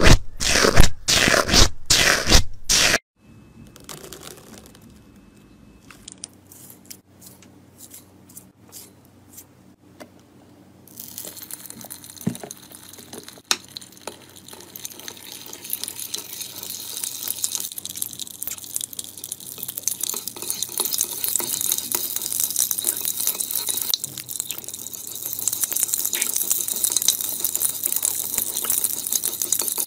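Foamy slime crunched and squished against a microphone in quick strokes, about two a second. After a short quiet pause, a metal spoon stirs and scrapes a wet slime mixture in a dish, with a steady liquid hiss that grows louder as liquid is squeezed in from a bottle.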